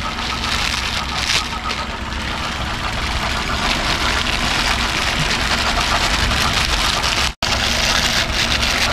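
Plastic instant-noodle wrapper crinkling and rustling as the dry noodle block is broken into a steel tin, over a steady low rumble.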